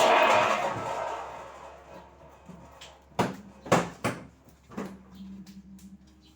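A loud scraping rush that fades away over about a second, then four sharp knocks between about three and five seconds in.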